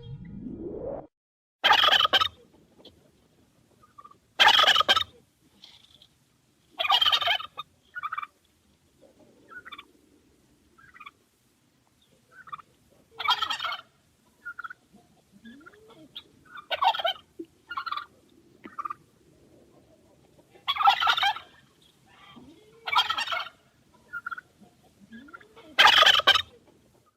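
Male turkey gobbling repeatedly: about eight loud gobbles spaced a few seconds apart, with softer short calls in between.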